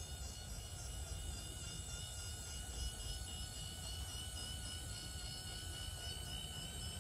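FarmLite automatic chicken coop door's small electric motor running steadily as it raises the sliding door panel on a test cycle, a thin whine over a low hum.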